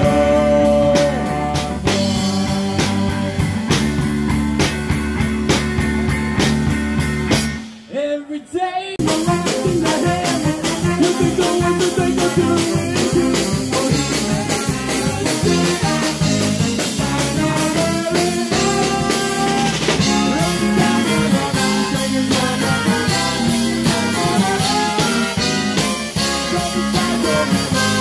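Live band of saxophones, trumpet, electric bass and keyboard playing with a steady beat, a singer over the band in the first part. The music breaks off briefly about eight seconds in, then resumes with the saxophone and trumpet section playing together.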